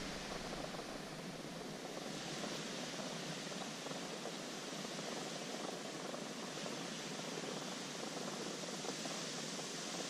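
A steady, even hiss with no distinct knocks, scrapes or tones.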